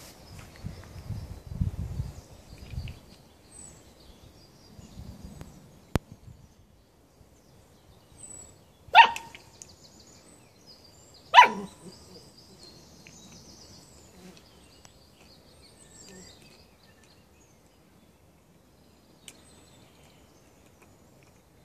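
Bernese Mountain Dog puppy barking twice, two short barks about two and a half seconds apart near the middle; the second drops in pitch.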